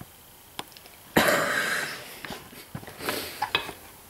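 A short cough about a second in, followed by a few light clicks and taps of a small metal part being fitted against the snow cone machine's base.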